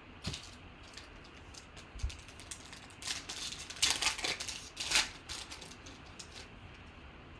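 A foil trading-card pack being torn open and crinkled by hand: a run of crackling rustles through the middle, loudest twice, after a few light clicks of packs and cards being handled.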